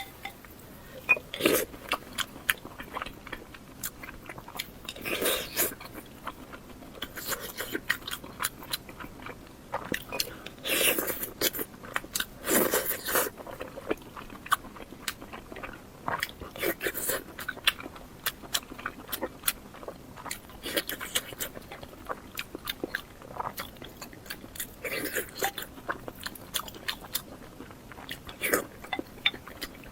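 Close-miked eating of red-braised pork (hongshao rou): bites and wet chewing full of small mouth clicks, with a louder bite every few seconds.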